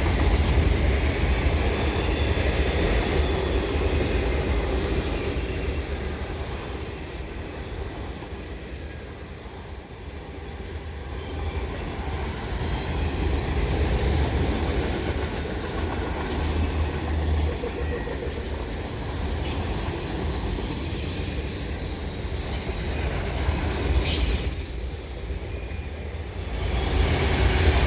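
Freight train cars rolling past with a steady low rumble and wheel clatter. Through the second half, thin high-pitched wheel squeal comes and goes.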